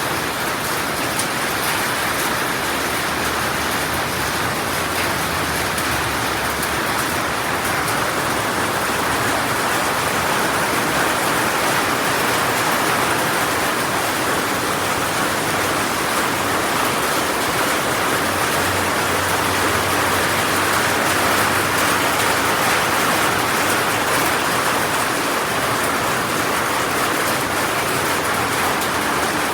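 Heavy rain falling steadily: an even, unbroken hiss of drops on surfaces.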